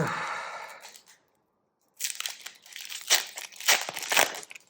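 Plastic foil wrapper of a trading-card booster pack being torn open and crinkled: a short rustle at the start, then a pause, then about two and a half seconds of dense crackling and tearing.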